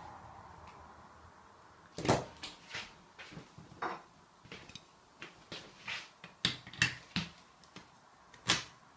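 Black plastic dog bowl stand handled and set down on a wooden table, then a ceramic plate laid on top of it: a string of knocks and clicks, the sharpest about two seconds in and again near the end.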